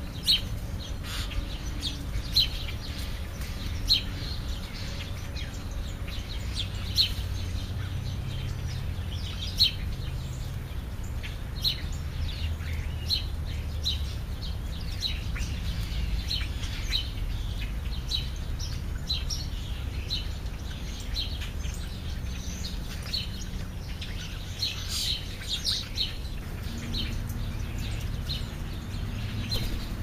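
Birds giving short, sharp chirps, one every one to three seconds, over a steady low rumble.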